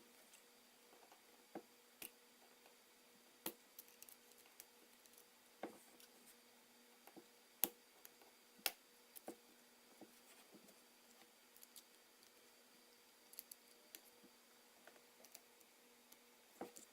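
Sparse, faint clicks and taps of a tool prying flex-cable connectors off an iPhone 4S logic board, at an irregular pace over a low steady hum. The two sharpest clicks come about halfway through.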